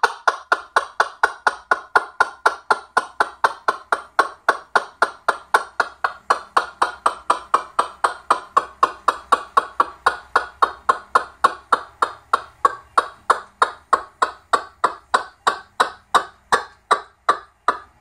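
Moluccan cockatoo making a steady run of short, clicking calls, about four a second.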